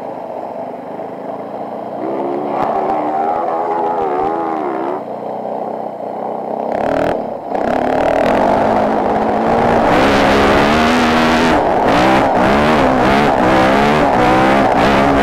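Dirt bike engine revving up and down, then held at high revs under full throttle as the bike climbs a steep dirt hill, with short knocks and rattles over the last few seconds.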